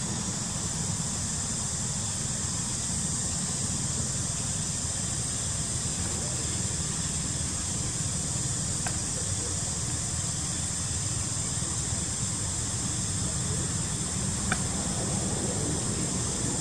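Steady outdoor background noise: an even hiss over a low rumble, with two faint clicks, about nine and fourteen seconds in.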